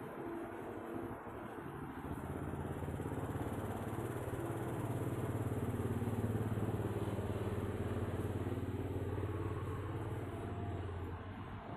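A motor vehicle's engine passing by: its low hum grows louder over several seconds, peaks around the middle, then fades away.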